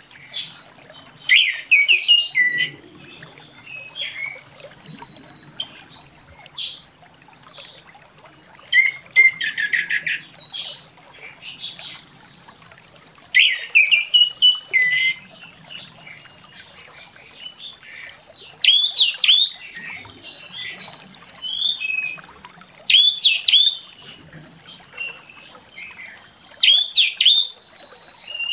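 Orange-headed thrush singing a long, varied song of clear whistled phrases, sharp notes and quick trills. The phrases come in bursts every second or two, with short pauses between them.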